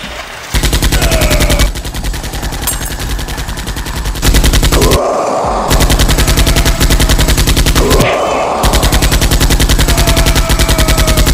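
Automatic gunfire sound effect, a very fast, even stream of shots. It starts about half a second in, drops back for a couple of seconds, then comes back loud and runs without a break, with two short swelling sounds beneath it about five and eight and a half seconds in.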